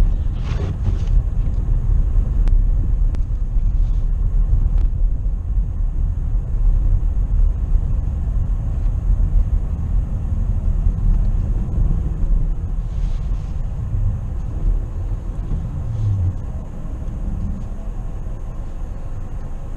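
Low, steady rumble of a car driving on a snowy road, heard from inside the cabin. It eases a little in the last few seconds.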